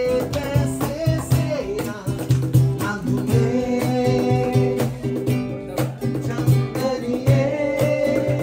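Live acoustic guitar strumming with a cajón slapped in a steady beat, and men singing loudly along.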